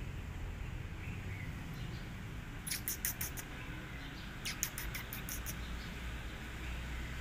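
A small bird giving two quick runs of sharp, high chirps, the first about three seconds in and the second, longer one about a second later, over a steady low outdoor rumble.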